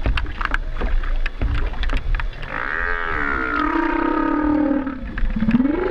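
Humpback whale calling underwater: about halfway through, a call with several tones held for about two seconds, then a rising upsweep near the end. Scattered clicks and crackles come before the call.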